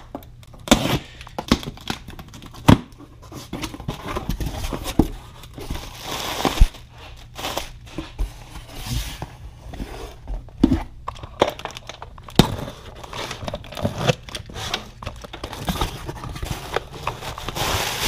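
Cardboard shipping boxes being torn open and rummaged through, with plastic wrapping crinkling and sharp knocks of boxes and parts being handled now and then.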